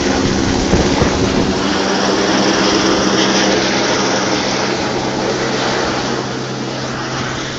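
Helicopter flying overhead and away while towing a flag banner, its rotor and engine noise loud and steady, with a low hum that drops in pitch about three seconds in.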